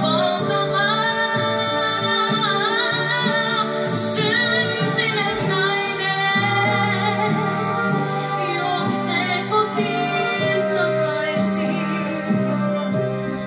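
A woman singing a Finnish-language song into a microphone with long, wavering held notes over instrumental accompaniment, heard through a television's speaker.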